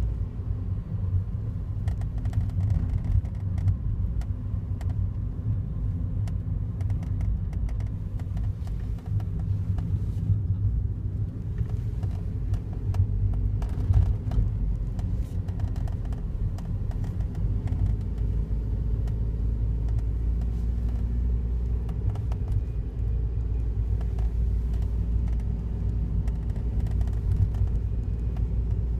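Daihatsu Wake kei car running with a steady low rumble, scattered light clicks and ticks over it and a sharper click about halfway through. This is the unexplained noise that the owner hears every morning and cannot trace.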